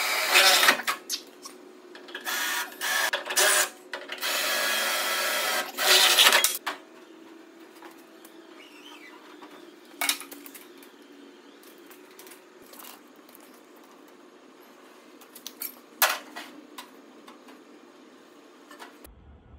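Several short bursts of a cordless power tool working the truck's sheet-metal body, the longest a steady run of about two seconds, all within the first seven seconds. After that it is quiet apart from a few sharp clicks and knocks.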